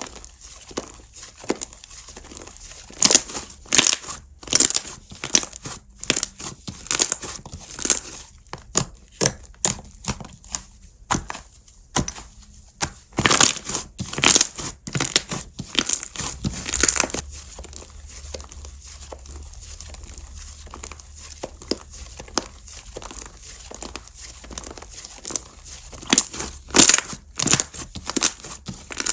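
Slime being squeezed, stretched and poked by hand, giving irregular sticky pops and crackling clicks, some in quick clusters.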